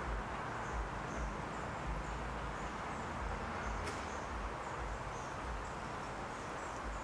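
Steady outdoor background noise with a string of faint, short, high-pitched chirps repeating every fraction of a second, and a single sharp click about four seconds in.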